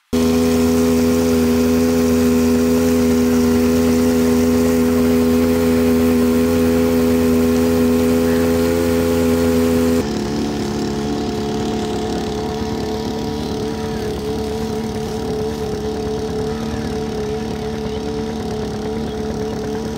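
Floating water pump's small petrol engine running steadily at high speed, a constant pitched hum. About halfway through, the note drops slightly and turns rougher.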